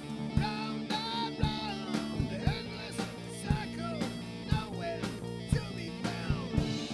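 Rock song as background music: electric guitar over a steady drum beat of about two hits a second.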